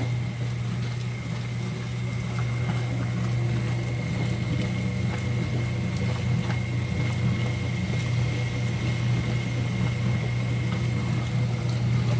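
Brastemp Super Luxo washing machine running during a test wash, its motor giving a steady low hum with a thin, steady high whine over it and a few faint ticks.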